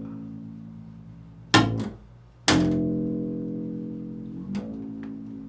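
Improvised chords on a plucked string instrument. A chord rings and dies away, then two more are struck sharply about a second apart, and the second is left to ring slowly down.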